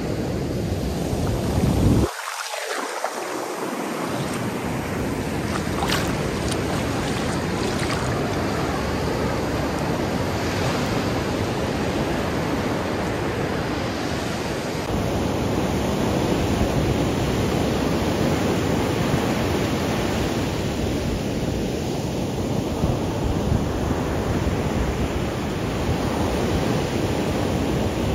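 Ocean surf rolling in and breaking on the shore in a steady, continuous wash, with wind on the microphone.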